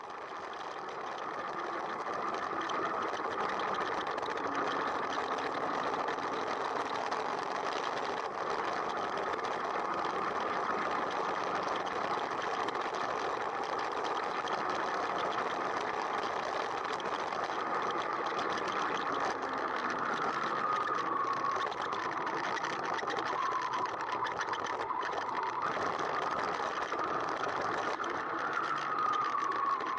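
Motorcycle engine running steadily while riding, its pitch rising and falling slightly a few times in the second half.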